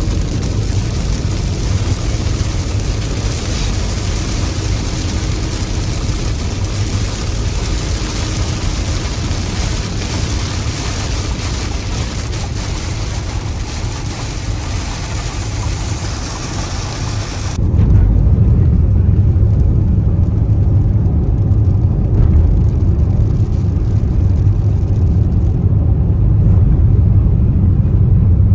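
Steady noise of a vehicle on the move. About two-thirds of the way in, it cuts suddenly from a hiss to a louder, deep rumble.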